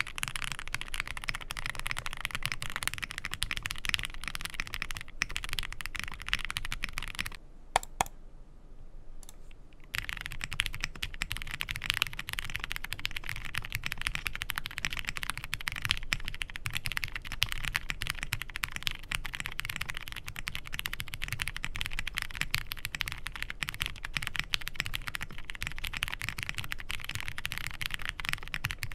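Fast, continuous typing on a Zoom65 V2 mechanical keyboard, dense key clicks with no let-up. At first it has ABS keycaps and full foam inside. After a short lull about eight seconds in, the sound comes from a build with no foam or weight: lubed and filmed, broken-in MX Brown tactile switches on a polycarbonate plate with PBT keycaps and a taped flex-cut PCB.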